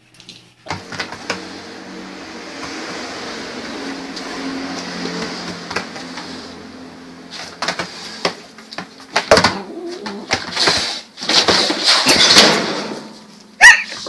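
A cat growling low and steadily over a food bowl, then a run of knocks and rustles, with one loud short cry near the end.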